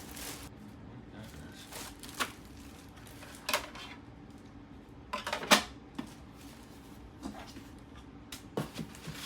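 Packing material and humidifier parts being handled while unboxing: scattered rustles and light knocks, the loudest about five and a half seconds in.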